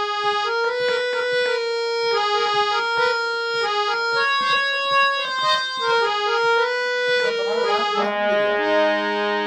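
Harmonium playing a quick melody of short reed notes, an instrumental interlude between sung lines of a Hindi bhajan. Near the end it settles into a sustained chord.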